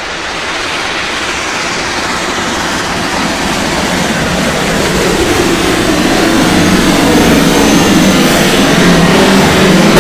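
Class 19D steam locomotive hauling a train, approaching and passing close by, its running noise building steadily louder.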